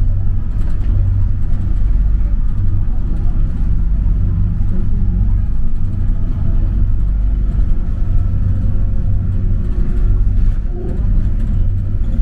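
Mitsubishi Crystal Mover C810A light-rail car running along its guideway on rubber tyres, heard from inside the car: a steady low rumble with a faint steady whine.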